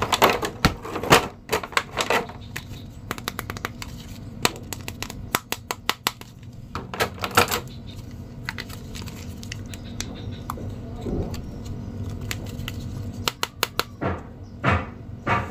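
Clear plastic blister packaging crinkling and hard plastic action figures and accessories clicking as they are handled, in irregular bursts of small clicks and crackles.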